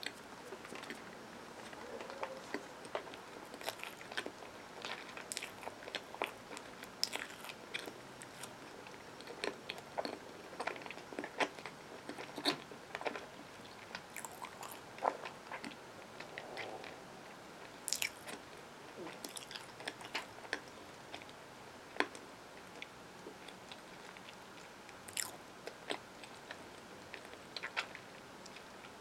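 Closed-mouth chewing of a mouthful of peanut butter and marshmallow sandwich, picked up close for a mukbang: soft, irregular mouth clicks and smacks.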